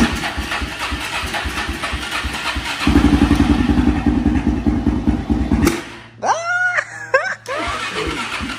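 Suzuki ATV engine being cranked over after its clogged fuel tank and filter were cleaned. About three seconds in it fires and runs roughly and loudly for under three seconds, then dies. A short high wavering sound follows, and the cranking starts again near the end.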